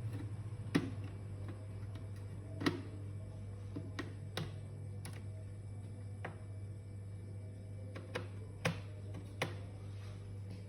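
Sharp, irregular clicks and taps of small hard laptop parts and tools being handled, about eight over several seconds, over a steady low hum.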